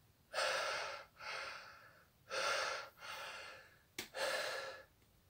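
A man breathing hard in and out through his open mouth, three quick breath pairs with a short click before the last, panting to cool the burn of a Carolina Reaper chili pepper.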